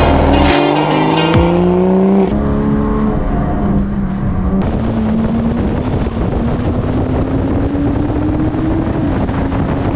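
A90 Toyota Supra race car accelerating hard, its engine note climbing through about the first two seconds with two sharp cracks. Then, heard from on board, the engine pulls steadily, its note rising slowly and easing off near the end, under a constant rush of road and wind noise.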